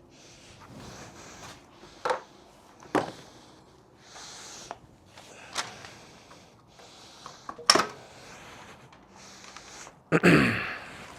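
Intermittent clicks and knocks of hand tools and small metal parts being handled and set down during motorcycle disassembly, with a louder clatter a little before the end.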